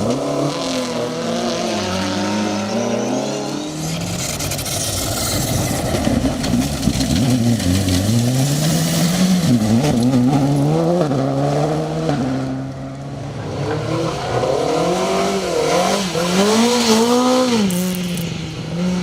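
A rally car engine revving hard, its pitch climbing and dropping again and again as it shifts gear and lifts off. A rushing hiss runs through the middle stretch.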